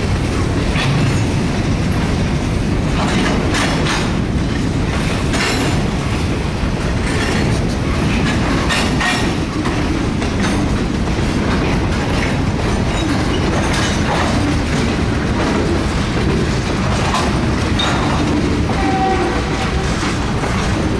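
Freight cars of a passing train (boxcars, covered hoppers and a tank car) rolling by. Steel wheels on rail give a steady rumble, with irregular clicks and clanks as the wheels cross rail joints.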